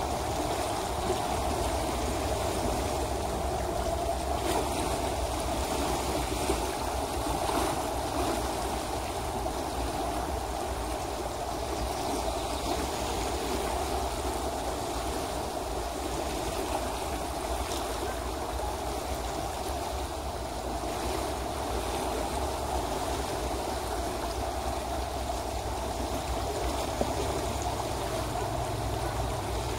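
River water rushing over a shallow, rippled riffle: a steady, unbroken rush of flowing water.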